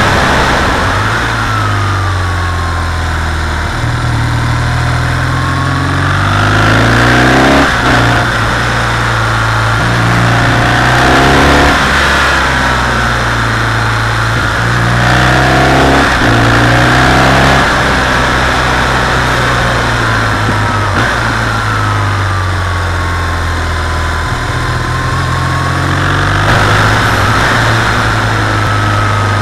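BMW R 1200 GS air/oil-cooled boxer twin running under way, its note rising and falling every few seconds through gear changes and bends, with wind rushing over the camera microphone.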